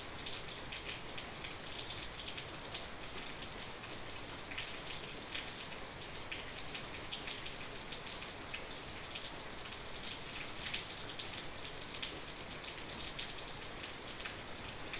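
Steady fine crackling and hissing of hot fried bread squares soaking in sugar syrup in a pot.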